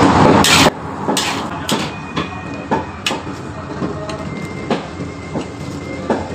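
A loud rush of noise that cuts off suddenly under a second in. Then a metal spatula knocks and scrapes against a large iron wok as chow mein is stir-fried, with sharp clanks coming irregularly, one or two a second.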